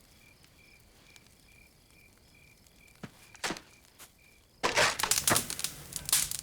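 Crickets chirping in a steady, even pulse at night. About four and a half seconds in, a loud burst of crackling and snapping sets in as a log is put on the campfire and it flares up.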